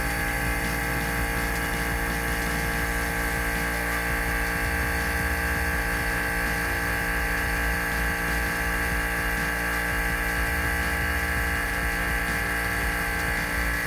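Vacuum pump running steadily with an even hum, drawing air out of a vacuum chamber as it pumps the pressure down.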